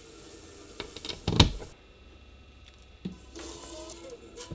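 A headphone plug pushed into a suitcase record player's headphone jack: two sharp clicks about a second and a half apart, the first the louder, then a faint steady hum near the end.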